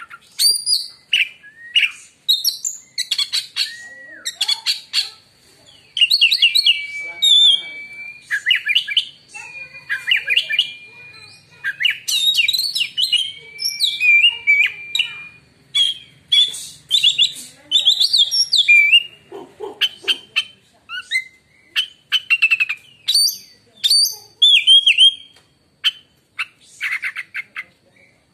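Oriental magpie-robin (kacer) singing a long, varied song of loud whistles, rapid sharp chips and quick trills, with a few held whistled notes.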